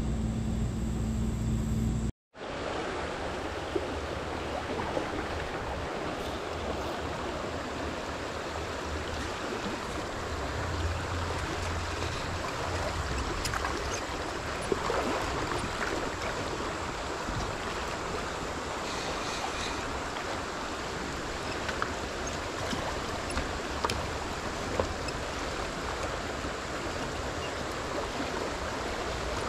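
Steady rush of a shallow, fast-flowing stream riffle running over stones, with a few faint ticks. It opens with a low rumble that drops out to a moment of silence about two seconds in, before the water sound takes over.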